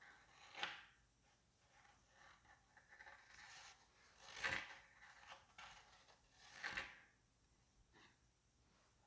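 Faint scraping and rubbing sounds, three louder brief strokes at about half a second, four and a half seconds and near seven seconds in.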